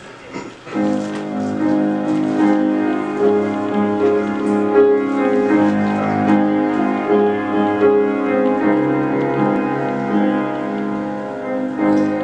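Grand piano playing a slow instrumental introduction to a worship song, beginning about a second in.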